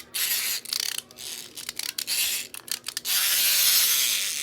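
Fidget toys being handled, with irregular scraping and rubbing bursts, then a steadier, louder rubbing from about three seconds in.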